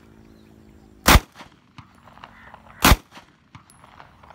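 Two 9mm pistol shots, about two seconds apart, each a sharp crack with a short ringing tail.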